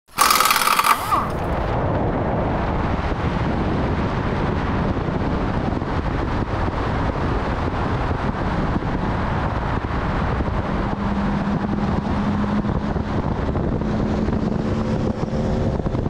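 A car driving on an open road, heard as a steady rushing of wind and road noise on the camera microphone, with a short loud burst in the first second. A humming engine note rises out of the noise twice in the second half.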